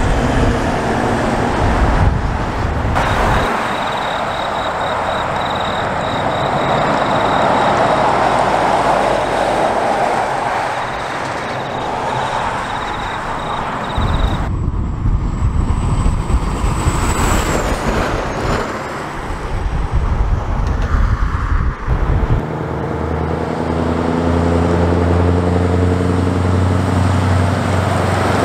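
Heavy diesel trucks pulling semi-trailer transporters driving past in several separate passes, with tyre and road noise and engine sound. Near the end a truck's diesel engine holds a steady low note as it approaches.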